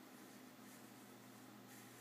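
Near silence: room tone with a faint, steady low hum and hiss.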